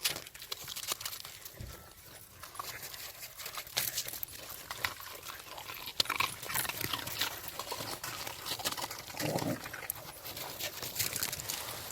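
Welsh corgis moving about: irregular crisp clicks and crunches throughout, with a short low dog vocalisation about nine seconds in.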